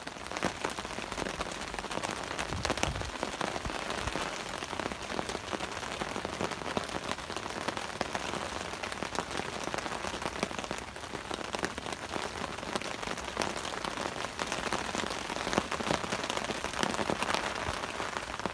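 Heavy rain falling steadily, a dense patter of drops hitting the tarp overhead and the ground around it.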